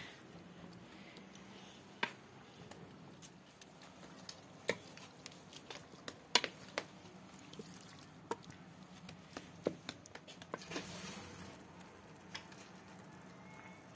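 Metal spoon stirring raw chicken pieces through a wet masala marinade in an aluminium pot: soft squelching with irregular clinks of the spoon against the pot.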